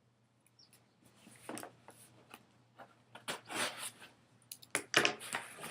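Cardboard subscription box being opened by hand: an irregular run of rustles, scrapes and clicks that starts about a second in and is loudest near the end.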